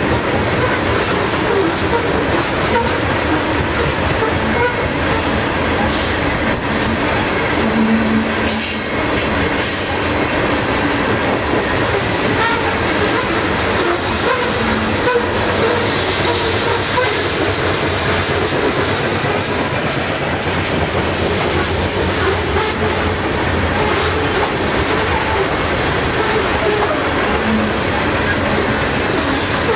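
Steel-wheeled coal hopper cars of a long freight train rolling past, a steady rumble and clatter of wheels on the rails.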